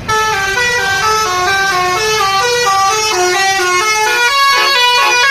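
Bus telolet horn: a multi-trumpet horn playing a quick tune. The notes step up and down a few times a second, with several tones sounding together. It starts suddenly and is loud.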